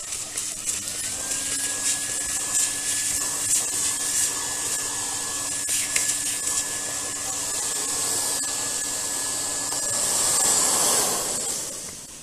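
Household vacuum cleaner running on high power with a narrow nozzle, sucking dust out of a pleated central-vacuum filter. Its steady motor whine dips in pitch briefly about a second in, with scattered rasps and clicks. It is switched off near the end and runs down.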